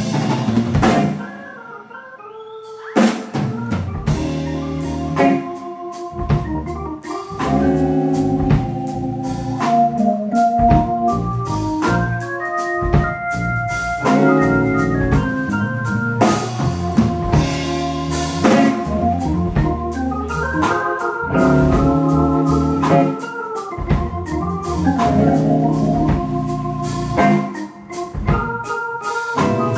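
Blues band playing live in an instrumental section: an electric keyboard on an organ sound plays a solo over drums. The band drops nearly out about a second in and crashes back in about three seconds in.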